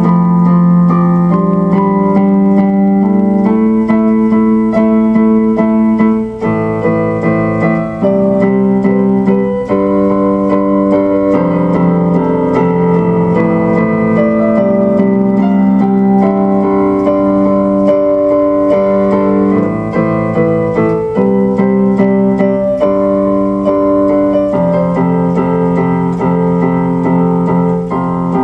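Electronic keyboard music: chords on an electric-piano sound, held and changing every second or two.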